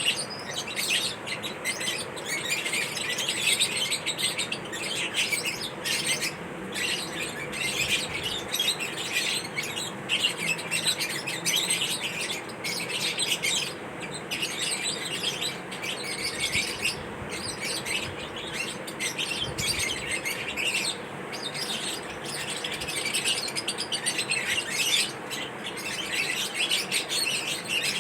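Pet lovebirds chirping continuously in quick, high, overlapping chirps.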